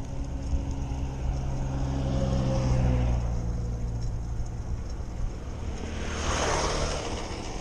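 Motor vehicles passing on a highway: a steady engine hum swells about two to three seconds in and dips slightly in pitch as it goes by, then a rush of tyre and air noise swells and fades around six seconds in as another vehicle passes.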